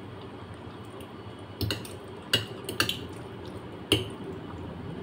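Eating sounds of a person taking carbonara pasta with a fork and spoon: a few sharp, wet clicks and smacks, about five of them from a second and a half in, over a low steady background.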